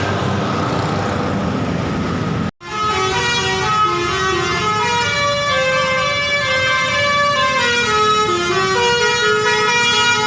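Basuri telolet bus horn playing a melody: loud pitched notes that step up and down a few times a second. It comes in suddenly about two and a half seconds in, after a noisy din that cuts off abruptly.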